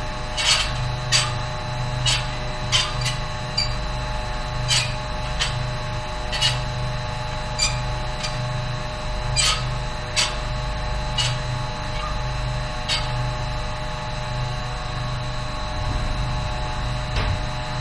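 Steady engine-room machinery hum with a low throb, and irregular sharp metallic clicks as a valve handwheel is turned by hand.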